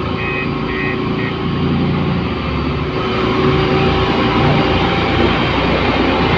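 A construction machine's diesel engine running steadily, with a reversing alarm beeping about twice a second that stops about a second in.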